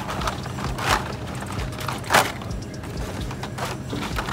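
Plastic-and-card Hot Wheels blister packs clacking and rustling as they are handled on metal store pegs, with two louder knocks about one and two seconds in, over a steady low hum.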